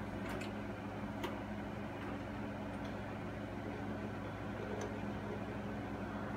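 VCR playing a VHS tape just put into play: a steady low electrical hum with a few faint clicks from the mechanism.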